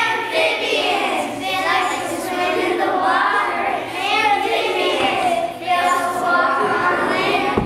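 A group of young children's voices chanting together in unison, in short rhythmic phrases.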